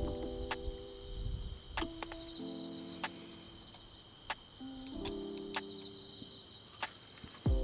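Crickets chirring in a steady, high, unbroken trill, with soft sustained music chords changing underneath.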